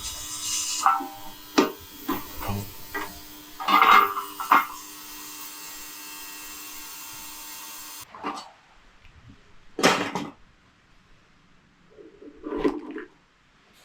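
Ultrasonic cleaning bath running with a steady hum, cleaning carburettor parts, with several sharp knocks over it. The hum cuts off abruptly about eight seconds in, leaving a quieter stretch with a few separate noises.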